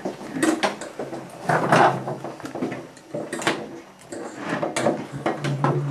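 Forks and serving spoons clinking and scraping against a baking dish and ceramic plates as salad is served out, a string of sharp irregular clinks.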